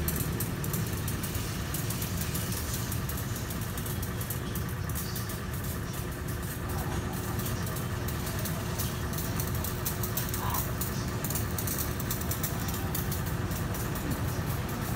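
Pressure washer's motor running with a steady hum while its spray jet washes a car.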